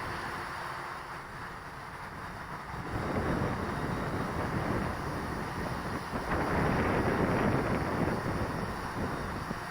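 Gusting wind buffeting the microphone over the steady hum of a quadcopter's motors; the gusts pick up about three seconds in and are loudest a little past the middle.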